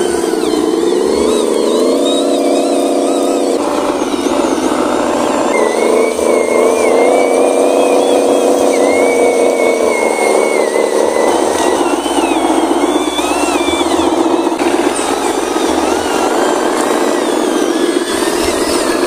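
Radio-controlled model dump trucks driving through mud, their motors and gearing whining and changing pitch as the load rises and falls. The sound changes abruptly several times where one clip cuts to the next.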